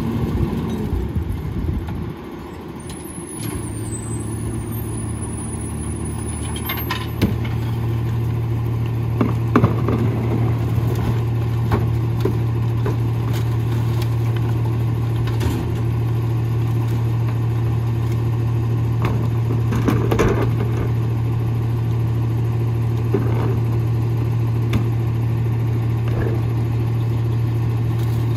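Rear-loader garbage truck (CWSI Pakmor body) running at the curb with a steady low hum that begins a few seconds in and grows stronger. Trash cans are being emptied into the rear hopper, with scattered clatter and a few sharp knocks.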